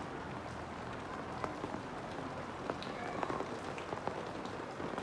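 Steady rain falling, with scattered individual drops landing as sharp ticks.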